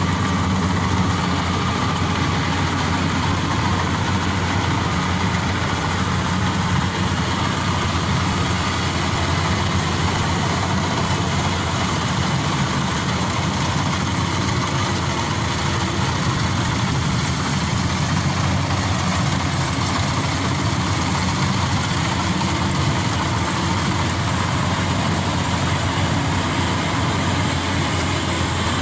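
Maxxi Bimo Evo Xtreme rice combine harvester running steadily while it harvests standing rice: a continuous drone of engine and working machinery.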